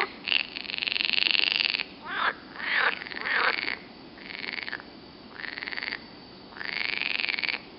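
Green frogs (Pelophylax water frogs) croaking: one long call that ends about two seconds in, then a string of shorter calls with short pauses between them.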